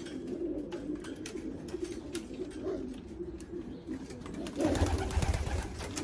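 Racing pigeons cooing, a continuous low warbling murmur. Near the end, a louder low rumble and rustle joins in.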